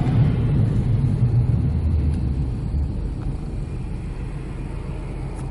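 Road noise inside a moving car: a steady low engine and tyre rumble on a wet road, growing gradually quieter.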